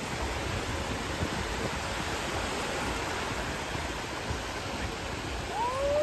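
Steady rush of small waves breaking and washing up in the shallow surf. Near the end comes a short, high cry that rises and then falls.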